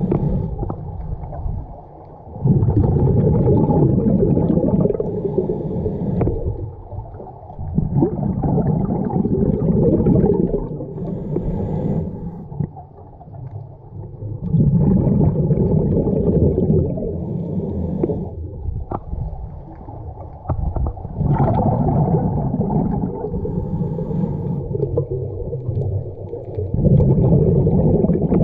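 Scuba diver breathing through a regulator underwater. A long rush of exhaled bubbles comes about every six to seven seconds, five in all, with quieter inhalations between.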